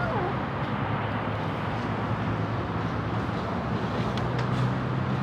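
Steady low motor-like hum over a constant noisy hiss, a little stronger about four seconds in, with a few faint clicks. The falling end of a hungry kitten's meow trails off right at the start.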